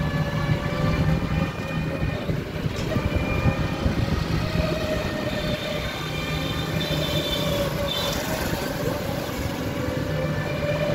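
A train running, a steady low rumble with sustained whining tones above it.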